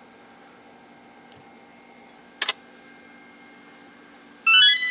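A faint steady hum with one sharp click about halfway, then near the end a loud, fast rising run of electronic notes: the intro jingle of a Flash video starting to play through an iPhone's speaker.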